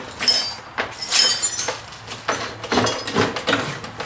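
The steel bar of a Harbor Freight manual tire changer clanking and scraping against the changer and an aluminum rim as it is levered around the tire bead. It makes an irregular run of sharp metallic clinks and knocks, some of them ringing briefly.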